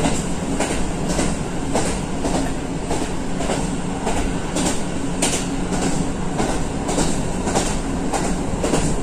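Cabin sound of a diesel railcar running at speed: a steady engine and wheel rumble with the clickety-clack of the wheels over rail joints, about two clicks a second.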